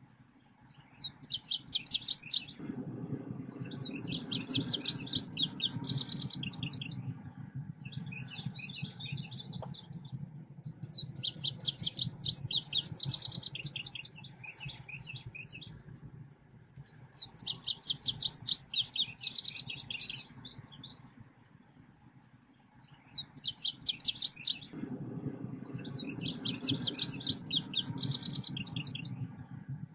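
Recorded song of the Indonesian songbird called selendang biru, used as a lure and training call: phrases of rapid, high trilled chattering notes about two to four seconds long, repeated every few seconds, over a low steady hum.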